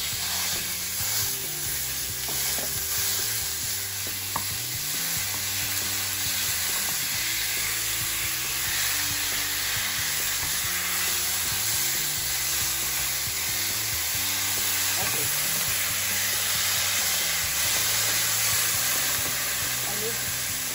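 Ground beef sizzling in a very hot frying pan as it is stirred and broken up with a wooden spoon, with low background music underneath.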